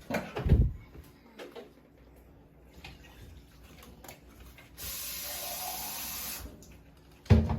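Kitchen cleaning sounds: a steady hiss of spray or running water for about a second and a half in the middle, starting and stopping abruptly. Two dull knocks come near the start and just before the end.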